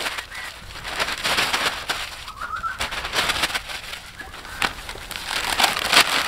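Sheets of newspaper being crumpled and scrunched by hand into balls: a continuous crackling rustle, loudest near the end. A bird chirps briefly about two and a half seconds in.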